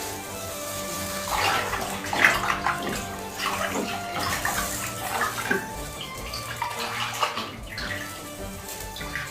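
Water splashing and sloshing in irregular bursts for several seconds, over steady background music.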